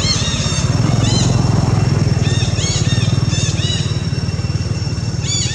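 An engine running steadily with an even low pulsing, overlaid with short high-pitched chirping calls that come in quick clusters several times.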